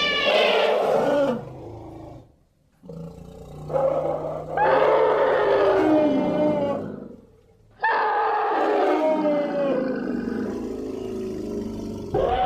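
Archaeobelodon creature sound effects: a string of long, loud animal calls, each sliding down in pitch, separated by short silent gaps.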